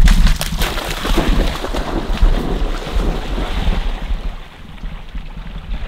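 A retriever dog bounding and splashing into shallow water to fetch a shot duck, with loud splashing for about the first four seconds that then dies down as it swims off.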